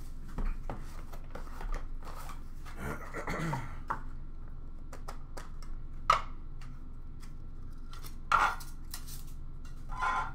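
Hands unwrapping and opening a sealed trading-card box: plastic wrap and cardboard rustling and scraping, with a longer scrape about three seconds in and a few sharp clicks and knocks later as the box and its plastic insert are handled.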